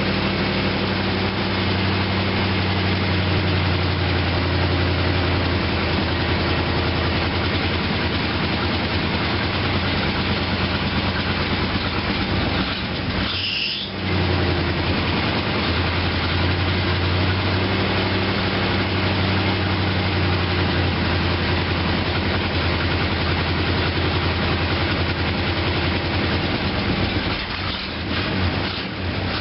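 1966 Mercury Park Lane's 390 Ford FE V8 idling steadily on a cold start without choke, with an exhaust leak. The sound dips briefly once, about thirteen seconds in.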